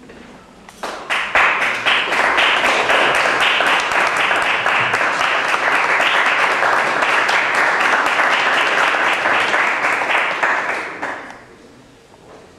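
Audience applauding: dense clapping that starts about a second in, holds steady, and dies away near the end.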